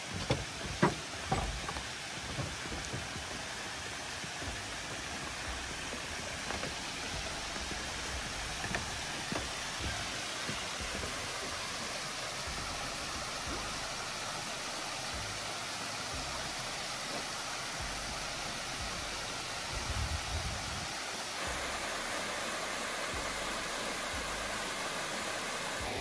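Mountain stream water rushing steadily over granite rocks and slabs. A few sharp knocks near the start, footsteps on wooden stairs.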